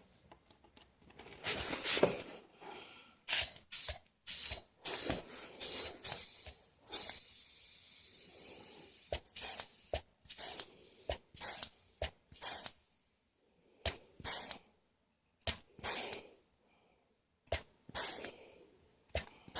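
WD-40 aerosol spraying onto a tin slug: a steady hiss of about two seconds, among a run of short hisses and knocks roughly a second apart.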